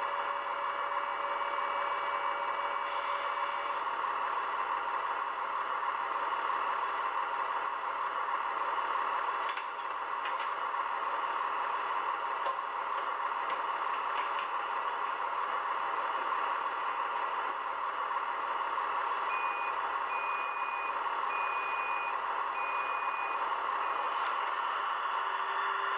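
Sound decoder of a Roco H0 class 628 diesel railcar model playing the diesel engine idling through its small speaker, with a steady tone that stops about four seconds in. About twenty seconds in, the Sifa (driver's vigilance device) warning sounds: a run of about five short, evenly spaced high beeps.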